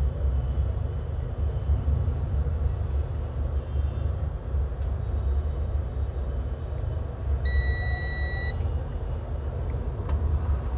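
A steady low rumble, and about seven and a half seconds in a single high electronic beep lasting about a second.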